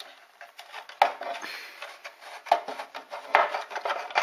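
Hard plastic slot-car display case being handled: a sharp click about a second in, then scraping and rubbing with a couple of light knocks.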